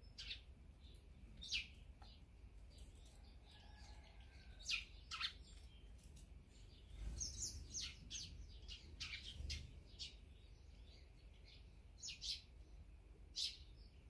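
Small songbirds chirping: short, sharp, high chirps at irregular intervals, busiest around the middle, over a faint low background rumble.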